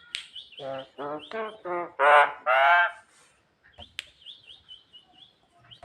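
Javan myna calling: a run of about six harsh, honking calls that grow louder, the last two loudest. These are followed by a quick string of thin, high chirps, part of its mimicked 'isian' song.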